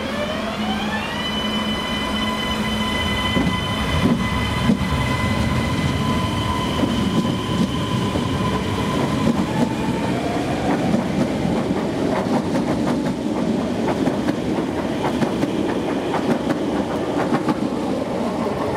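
CP Class 3400 electric multiple unit running past along the platform. Its traction whine rises in pitch over the first second, then holds steady, and fades after about ten seconds. In the second half the wheels clatter over the rail joints with more and more frequent clicks.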